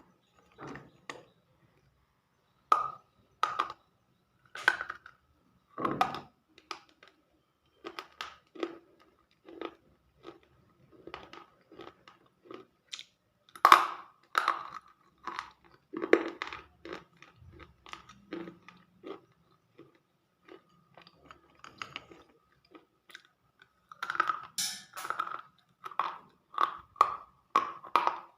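Close-miked biting and chewing of something crunchy: irregular crisp crunches, a few to several a second, coming thicker near the end, over a faint steady tone.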